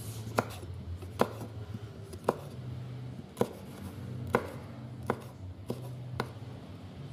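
Kitchen knife chopping a red bell pepper on a wooden cutting board: about eight sharp chops, unevenly spaced, roughly one a second.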